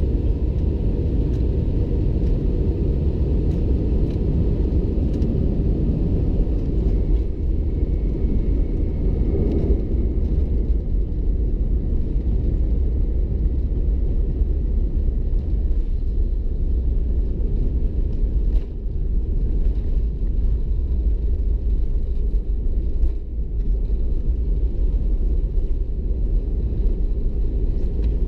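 Airbus A319 cabin noise heard from a window seat: a steady low rumble of the engines and airflow, with no change in pitch and a couple of brief dips in loudness near the end.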